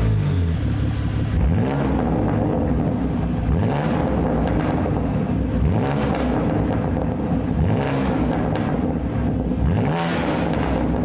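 BMW M3's exhaust with its factory valves closed, the stationary engine blipped from idle five or six times, each rev rising and dropping back.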